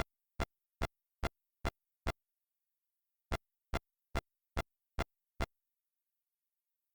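Electromagnetic interference picked up as sound: two runs of six short, sharp electronic pulses, about two and a half a second, with a pause of about a second between the runs.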